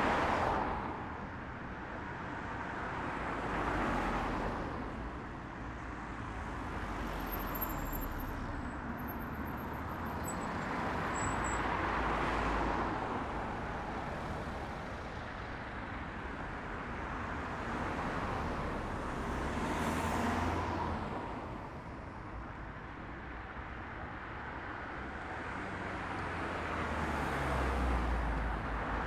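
Road traffic: cars passing one after another, each swelling and then fading away.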